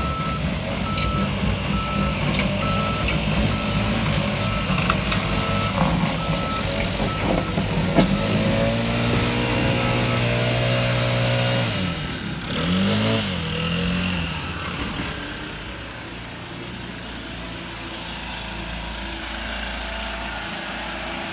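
Gas backpack leaf blower running at high throttle, with a truck's reversing alarm beeping steadily over it in the first few seconds. About twelve seconds in, the blower's engine is throttled down, revs briefly and falls to a lower, steadier running sound.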